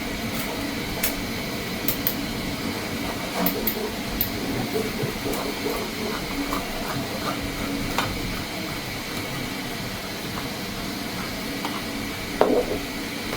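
Steady background hum with scattered light clicks and taps, and a slightly louder knock near the end.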